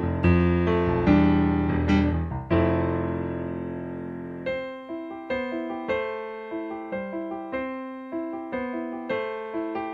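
Solo piano music. Deep bass chords drop out about halfway, leaving lighter single notes higher up.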